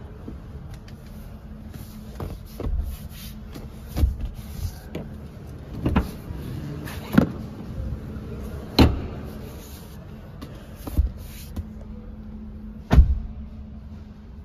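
A series of sharp clicks and knocks, about one every one to two seconds with the loudest near the end, from the rear seat and cup-holder fittings of a BYD Dolphin's cabin being handled, over a steady low hum.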